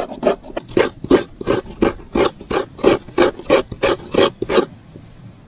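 Halved coconut scraped against the serrated metal blade of a stool-mounted coconut grater, grating out the fresh meat in even strokes about three a second, stopping near the end.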